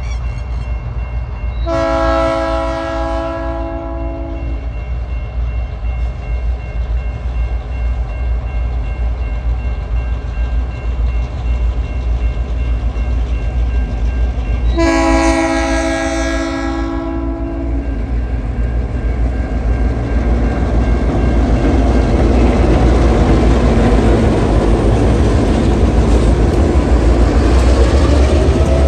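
TasRail TR-class diesel locomotives sounding a multi-note horn twice, each blast about three seconds long, with a low diesel engine rumble underneath and steady ringing from the level-crossing warning bells. From about 20 seconds in, the train passes over the crossing and the engine and wheel noise grows louder.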